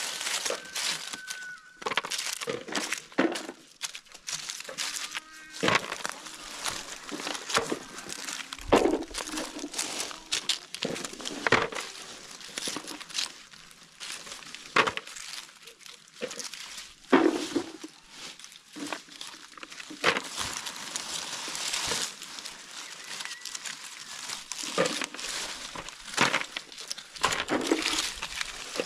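Dry fallen oak leaves rustling and crunching as hands rummage through them for acorns, with frequent irregular clicks and knocks as acorns are picked up and dropped into plastic buckets.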